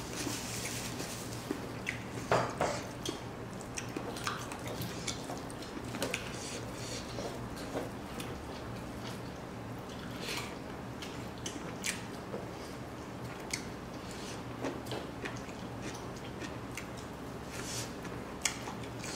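A person eating rice and smoked pork by hand: chewing and lip smacks, with scattered small clicks and taps as his fingers pick food off the tray.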